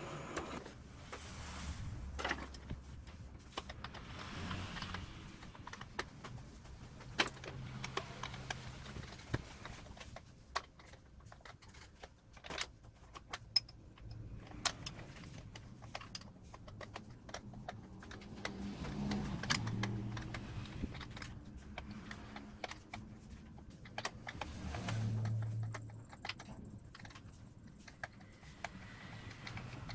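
Blanket clamp bolts on a small offset press being tightened with hand tools: scattered metallic clicks and taps, with a couple of short low hums partway through.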